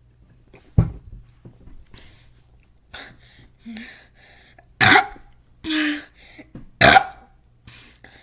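A thump about a second in, then several short, loud coughs and burps in the second half from a person who has just gulped down fizzy Sprite.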